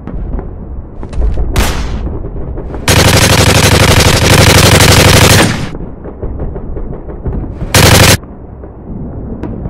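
Machine-gun fire sound effects: a short burst about one and a half seconds in, a long burst of rapid automatic fire from about three seconds to five and a half, and another short burst about eight seconds in. A low rumble runs between the bursts.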